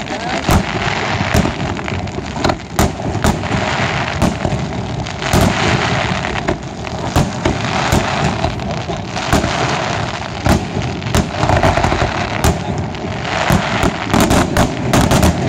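Aerial fireworks display: a rapid, irregular series of shell bursts and bangs over a dense noisy rush, the bangs coming thickest near the end.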